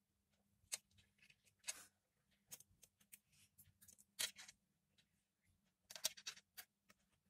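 Near silence broken by scattered faint clicks and short scrapes as a thread-wrapped earphone cable and its plastic earbud are handled.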